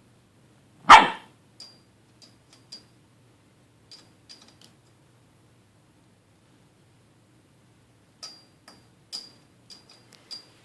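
A dog barks once, loudly, about a second in. Scattered light clicks and clinks follow in two clusters, one early on and one near the end.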